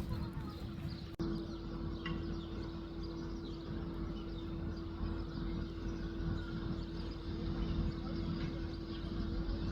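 A steady low mechanical hum with a constant pitch under outdoor rumble, with faint bird chirps; the sound drops out and cuts back in about a second in.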